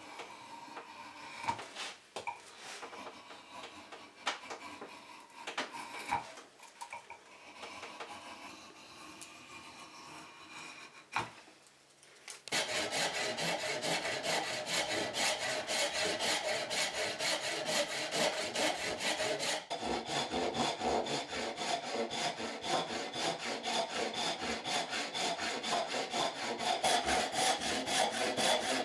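A hand rasp scrapes along a wooden chisel-handle blank, fairly quietly, with scattered clicks. About twelve seconds in, a backsaw starts sawing into the end of the blank, much louder, in a steady run of rapid strokes that lasts to the end.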